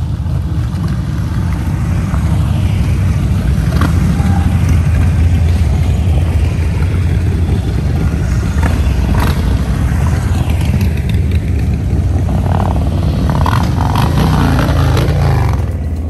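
Motorcycle engine running steadily under way, its pitch falling near the end as it slows.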